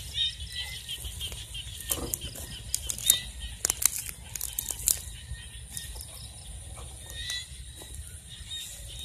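Footsteps and rustling through tall grass and weeds, with a cluster of sharp crackles and clicks in the middle, over a steady low rumble.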